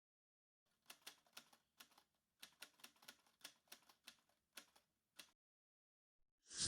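Faint keyboard typing: about fifteen irregular keystroke clicks in quick runs, stopping after about five seconds. A short whoosh begins right at the end.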